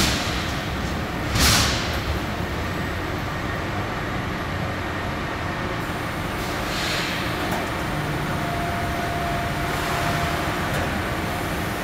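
Pallet changer of a Bystronic BySpeed Pro 3015 CNC laser cutter shuttling its steel-sheet tables, a continuous mechanical running noise. A short loud hiss comes about a second and a half in and a softer one midway. A steady hum with a thin whine over it runs for a couple of seconds near the end as the table travels.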